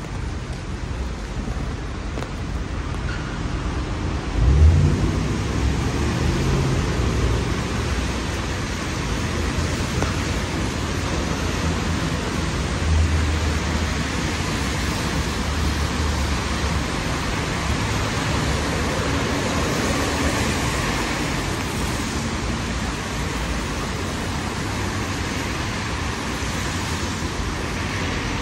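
Steady hiss of rain and car tyres on a wet city street, with low rumbles of passing traffic. A brief low thump about four seconds in.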